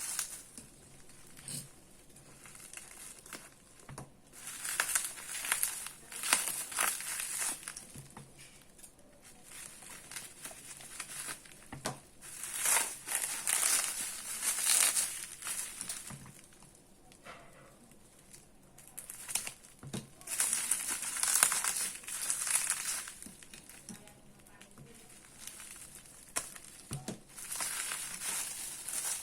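Packaging being unwrapped by hand: crinkling and rustling in four long spells, with a few sharp knocks between them.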